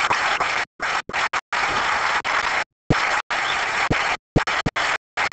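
Audience applauding, a steady clapping hiss that keeps cutting out completely for split seconds, as if the recording is dropping out.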